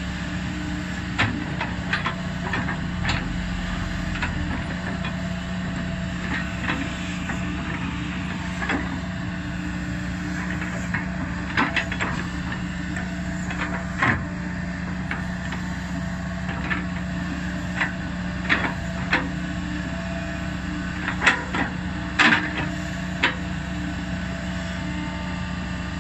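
Kobelco SK200 excavator's diesel engine running at a steady pitch, with scattered sharp clanks and knocks from the working machine; the loudest come in a quick cluster a little over three-quarters of the way through.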